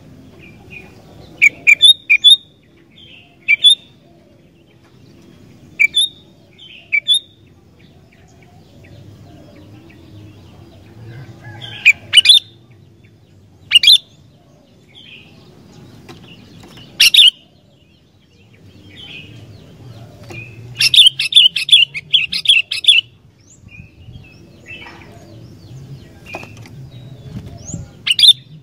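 Sooty-headed bulbul (kutilang) calling: short, sharp, loud chirps every second or few, with a quick run of repeated notes about three-quarters of the way through. A low steady rumble lies underneath.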